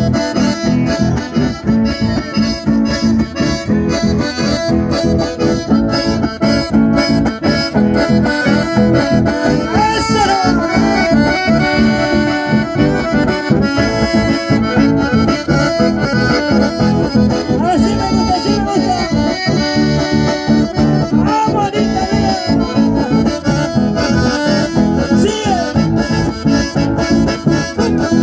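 Chamamé played live on two button accordions with acoustic guitar accompaniment, a steady dance rhythm through a PA.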